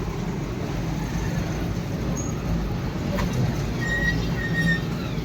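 Steady low mechanical rumble with a faint hum.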